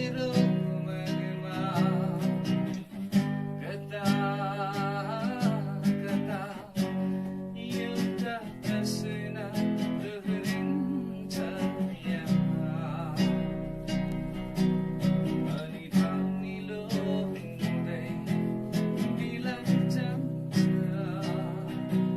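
Music: a strummed acoustic guitar with chords changing every second or two and a wavering melody line over it.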